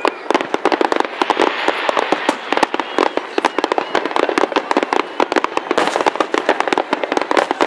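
Fireworks display in full barrage: aerial shells bursting and crackling in rapid succession, several loud reports a second with no pause.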